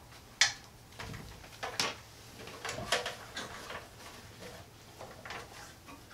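Handling noise of insulated wires being drawn through a knockout in a steel breaker-panel enclosure by gloved hands: a sharp click about half a second in, then scattered clicks and scrapes.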